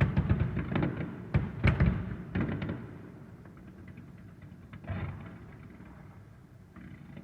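Fireworks finale: aerial shells bursting in a rapid run of booms for about three seconds, then thinning out to a few fainter reports, with one more burst about five seconds in.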